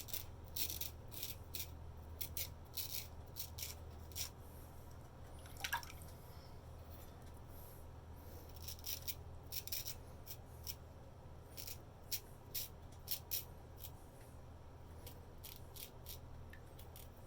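Antique straight razor scraping through lathered stubble in quick strokes: clusters of short, crisp scratches with pauses between them. A low steady hum runs underneath.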